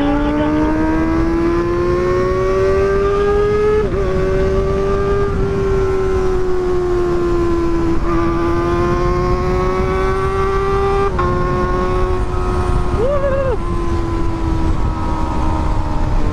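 Kawasaki ZX-25R's inline-four engine with an aftermarket Pro Liner exhaust, ridden at high revs: the engine note climbs, then holds high with brief dips about 4, 8 and 11 seconds in, over steady wind and road noise.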